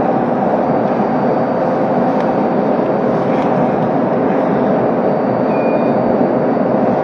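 Steady hum and rush of a stopped electric commuter train's onboard equipment running while it stands at a station, with a faint steady tone under it. A short high beep sounds about five and a half seconds in.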